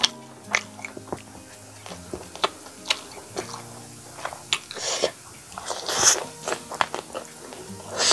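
Close-miked wet chewing of a mouthful of chicken curry and rice eaten by hand, with many sharp mouth clicks and smacks and a couple of longer, louder smacking sucks around five and six seconds in.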